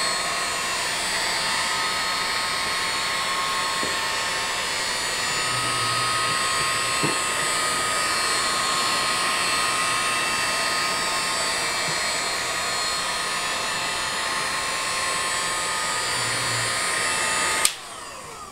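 Electric heat gun running steadily, its fan blowing hot air to warm freshly poured epoxy in a guitar's purfling channel and bring up the bubbles. It is switched off near the end and cuts out abruptly.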